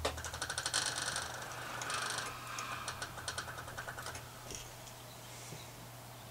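Pressing with an iron on an ironing board: a quick, irregular run of clicks and rattles with two short bursts of hiss, dying away after about four and a half seconds.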